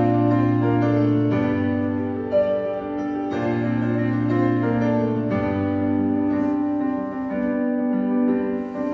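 Solo piano playing slow, held chords with a melody above them, the chords changing every two seconds or so.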